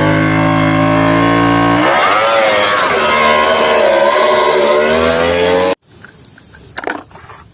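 Motorcycle engine sound effect: running steadily, then revving up and down from about two seconds in, and cutting off suddenly near the end.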